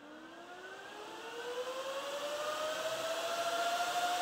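Kaleido M6 Pro coffee roaster's bean-cooling fan switched on and spinning up: a whine that rises steadily in pitch over a growing rush of air, getting louder throughout.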